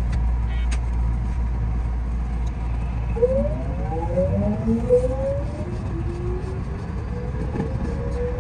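Electric multiple unit pulling away from a station: the traction inverter and motors whine, several tones rising together in pitch in steps from about three seconds in as the train gathers speed, over the low rumble of the running gear.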